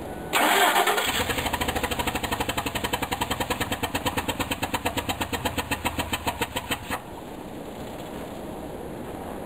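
Ford Triton V8 starting up and running with a loud, fast, rhythmic chuffing tick from a cylinder whose spark plug has blown out of the cylinder head, a fault common on these engines. The engine is switched off about seven seconds in.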